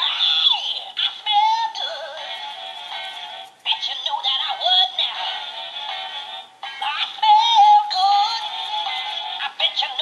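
Gemmy animated Valentine poop-emoji plush playing its song through its small built-in speaker: a sung tune over music, thin and tinny with no bass, starting suddenly as its hand button is pressed, with two short breaks.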